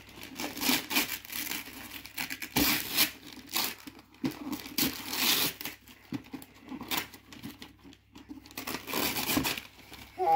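Wrapping paper being torn and crumpled in several irregular bursts as a present is unwrapped.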